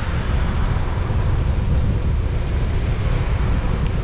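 Steady wind rumble buffeting the microphone while riding along a bike lane, over a constant hiss of tyre and road noise.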